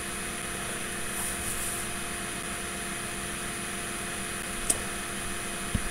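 Room tone: a steady electrical hum with hiss, and a faint click about two-thirds of the way through.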